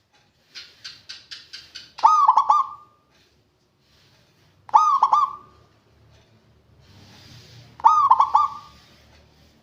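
Zebra dove (perkutut) cooing its song: three loud phrases, each a few quick looping notes, a few seconds apart. The first phrase comes after a rapid run of about seven short notes.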